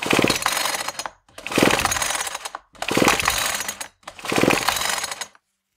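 Recoil starter of an Echo CS-3000 top-handle chainsaw pulled four times, about a second each, the two-stroke engine spinning over with a fast ratcheting whir without firing, its spark plug out. The cranking sounds good, the cylinder freshly lubricated with penetrating oil.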